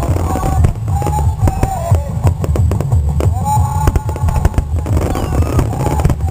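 Aerial firework shells bursting in a rapid, continuous barrage of bangs and crackles over a deep rumble, with music playing along.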